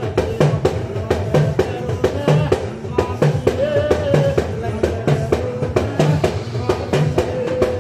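Music with a steady drum beat: a low drum stroke about once a second under quicker percussion hits, with a held, wavering melody line over it.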